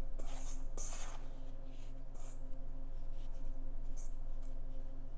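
Fingers rubbing butter into flour in a stainless steel bowl: soft, scratchy rustles that come and go, over a steady low hum.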